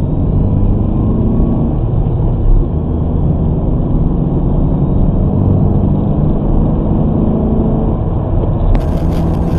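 Car engine and road noise heard from inside the cabin as the car accelerates, a dense steady rumble picked up by the dashcam's microphone. Near the end the sound changes abruptly as it cuts to another recording.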